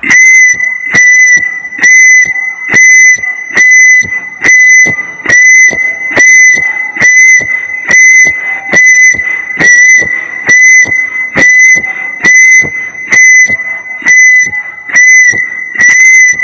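Electronic red-alert alarm sound effect: a loud, high-pitched tone pulsing in repeated beeps about once a second.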